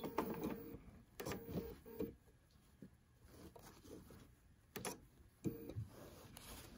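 Bernina 770 sewing machine stitching in a few short, slow bursts with pauses between, as quilting along a ruler edge is finished. There is a light click about five seconds in.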